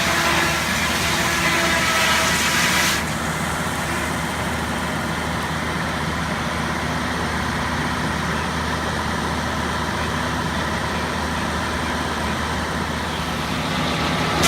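Engine-driven sawmill running steadily. A harsh high hiss of the saw blade cutting wood stops abruptly about three seconds in, leaving the engine and the free-running saw. The sound builds again near the end.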